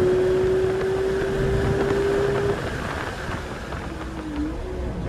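Porsche GT3's 4.0-litre naturally aspirated flat-six at high revs under full throttle, heard from inside the cabin, its note climbing slowly as the car pulls down the track. About two and a half seconds in the driver lifts off and the engine note drops and quietens, running lower afterward.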